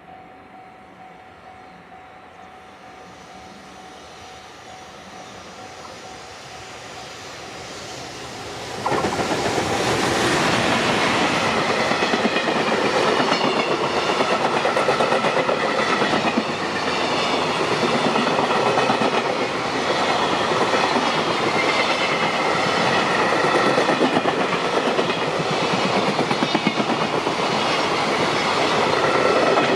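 Freight train approaching and passing: a faint rumble builds, then about nine seconds in the locomotive arrives close and loud, followed by a long run of wagons whose wheels clack rhythmically over the rail joints.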